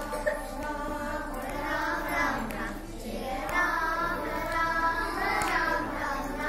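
A group of young girls singing a chant together in unison, unaccompanied, in slow drawn-out phrases.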